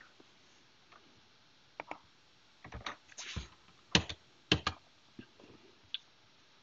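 Computer keyboard keys and mouse clicks. A few scattered clicks come first, then a quick flurry about three seconds in, and the sharpest key presses about four and four and a half seconds in.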